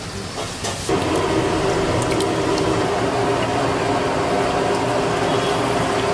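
A ladle mixing yogurt into marinated chicken pieces in a large pot, with soft squelching. Under it runs a steady, loud kitchen drone and hiss that starts abruptly about a second in.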